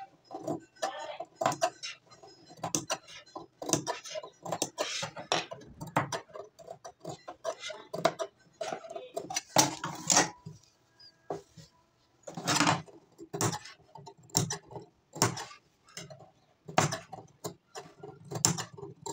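Large steel tailoring scissors snipping small cuts into blouse fabric: a quick, irregular series of short, crisp snips with brief pauses between them.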